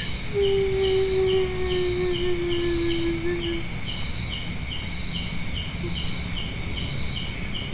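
Night insects such as crickets chirping in a steady pulsing rhythm, about three chirps a second, over a high continuous insect drone. About half a second in, a long low tone sounds for about three seconds, sinking slightly in pitch.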